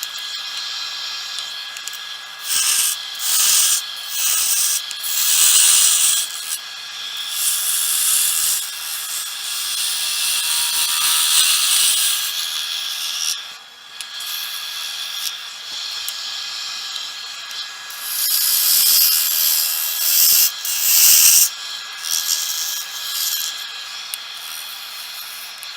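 A turning gouge cutting a spinning cedar blank on a wood lathe: a hissing, shaving sound that comes in several passes a few seconds long, with short breaks between them as the tool is lifted off.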